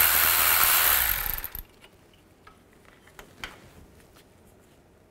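Power tool driving a 10mm socket, spinning out the crankshaft position sensor's retaining bolt with a steady whir that cuts off about a second and a half in. A few faint clicks follow as the loose bolt is handled.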